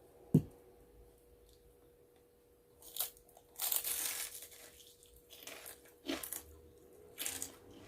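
Crunching bites into a crispy fried lumpia (spring roll) and chewing, in several short bursts from about three seconds in, after a single low thump near the start.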